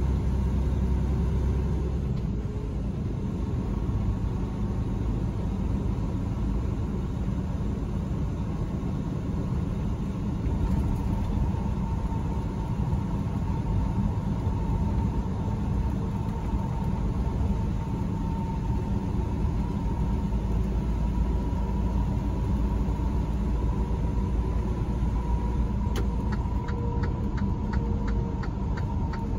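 Steady rumble of a truck's engine and road noise heard inside the cab at highway speed. Near the end the turn signal starts ticking, about four ticks a second, for the upcoming exit.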